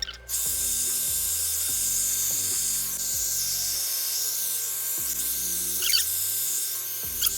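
Background music with a steady bass line under a constant high hiss, and a couple of short clicks near the end.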